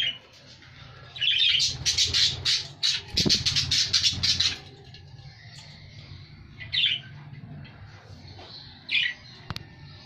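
Budgerigars calling: a loud rapid run of calls, about five a second, lasting some three seconds, then two short single chirps several seconds apart.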